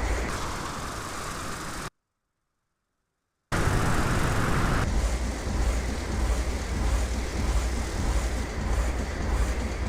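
Steady rushing roar of a Cessna 172 in flight heard from the cabin, with a pulsing low rumble, broken by complete silence for about a second and a half, about two seconds in.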